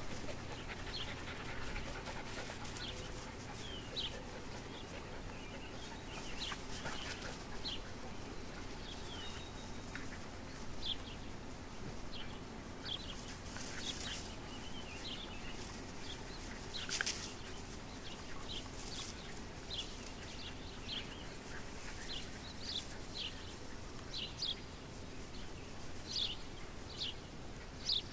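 Squeaky dog toys being chewed by English Springer Spaniel puppies, giving short high squeaks again and again, coming more often near the end.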